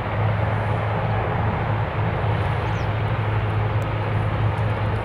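Two military helicopters, a Mi-24 among them, hovering low and lifting off: a steady wash of turbine and rotor noise over a continuous low drone.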